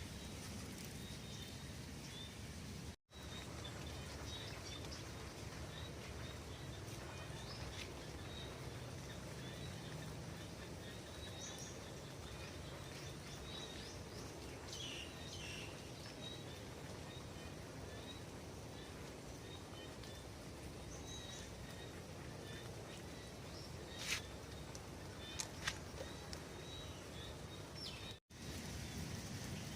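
Faint, steady outdoor background noise with a few birds chirping briefly near the middle and a couple of sharp ticks later on. The sound cuts out for an instant twice.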